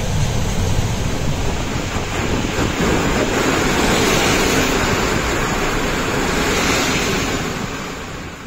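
Rush of wind and running noise of a moving Bo passenger coach heard through its open window, a steady loud noise of air buffeting the microphone and wheels on rail, easing off near the end.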